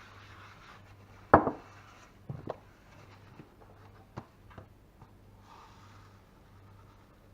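Several knocks and clinks of objects being handled and set down on a hard surface: a sharp, loud one about a second in, a lighter pair a second later, then a few faint clicks. A steady low hum underneath.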